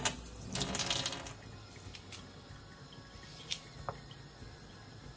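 Kitchen tap running over hands in a stainless steel sink, cut off about a second in. Afterwards a few faint clicks of a knife slicing onion over an earthenware bowl.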